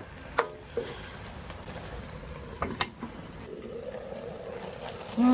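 Cooking in a pan: a metal utensil knocks on the pot two or three times over a steady low rumble, with a brief hiss from the pan about a second in.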